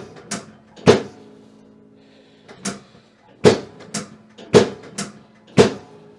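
Handheld chiropractic adjusting instrument firing against the spine: about eight sharp clicks, often in pairs about half a second apart, each with a short ringing tail.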